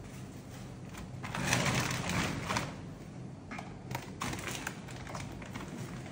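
Plastic scraping and rustling, then a scatter of light clicks and knocks as a Bambu Lab AMS filament unit is gripped and lifted off the top of an X1C 3D printer, over a low steady hum.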